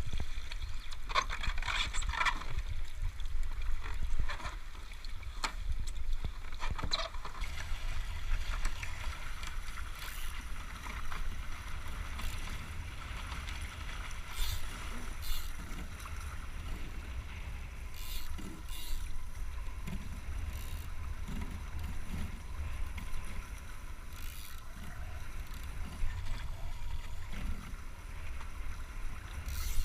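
Wind rumbling on the microphone aboard a foiling Moth sailing dinghy under way, with a faint hiss of water and scattered short knocks and splashes, more of them in the first few seconds.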